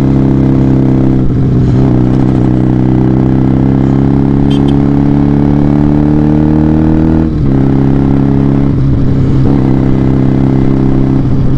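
Benelli TNT 300's 300 cc parallel-twin engine running through an SC Project aftermarket exhaust, heard from the rider's seat while cruising in traffic. The engine note climbs slowly, then breaks off briefly about seven seconds in and once more about two seconds later before settling steady again.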